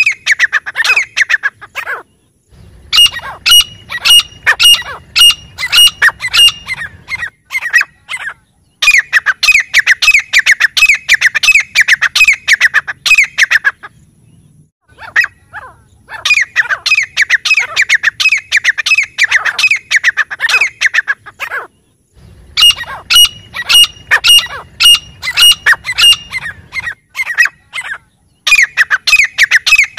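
Grey francolin calling: loud, rapid runs of harsh repeated notes, coming in bouts of about five seconds with short pauses between them.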